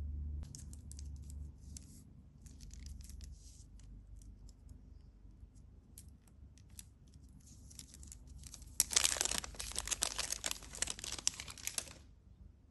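A chocolate bar's paper-and-foil wrapper being torn open and crinkled by hand: scattered light rustles at first, then about three seconds of loud, dense crinkling near the end.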